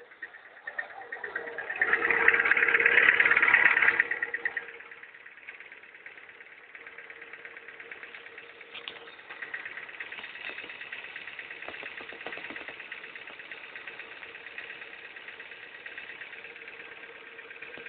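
Ford Fiesta Mk5 engine running, loud for a couple of seconds about two seconds in and then settling to a steady idle with a constant whine and fast ticking. The owner suspects the noise comes from the power-steering pump pulley or the crankshaft pulley.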